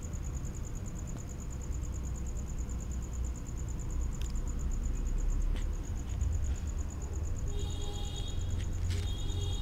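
A few faint metallic clicks of pliers working the gear-shifter cable end off the gearbox of a Maruti Suzuki petrol hatchback, over a low rumble and a steady high pulsing trill.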